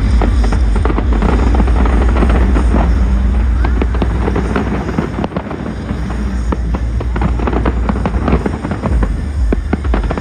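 Fireworks bursting and crackling in quick succession over music with a heavy bass line.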